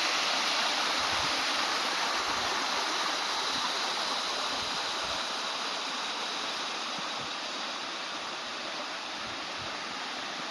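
A stream's water rushing steadily down its channel, a continuous even wash that grows slightly fainter toward the end.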